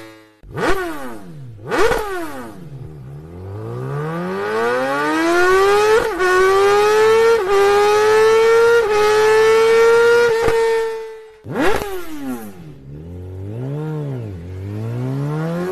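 Superbike engine blipped twice, then accelerating hard through four quick upshifts, its pitch climbing in each gear and dipping at each shift. After a brief break about two-thirds of the way in, it revs up and down again and starts another rising run near the end.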